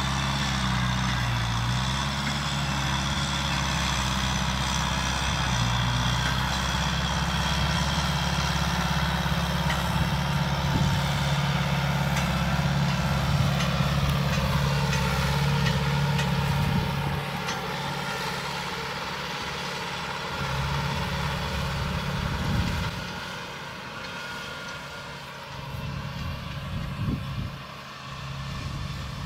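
Kubota M6040SU tractor's diesel engine running steadily under load as it pulls a disc plough through dry field soil. It is loudest in the first half and grows quieter about two-thirds of the way through as the tractor moves away.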